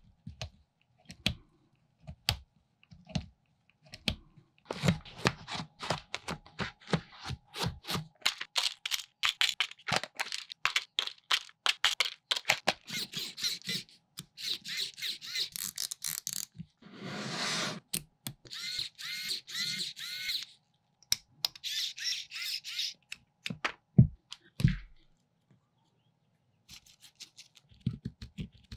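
Small metal parts of a Toyan V8 model engine kit being handled and screwed together: quick clicks, ticks and taps, dense through the middle, with a brief rustle of about a second in between.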